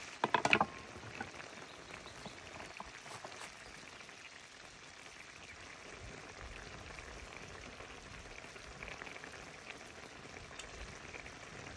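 An uncovered pot of salmon stew simmering, with a steady soft bubbling hiss and scattered small pops. A quick rattle of metal clinks about half a second in.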